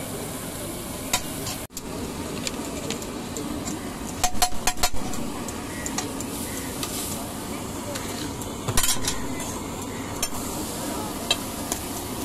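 Pizzas sizzling steadily on a large hot tawa griddle, with a quick cluster of sharp metallic clinks about four seconds in and another loud clink near nine seconds.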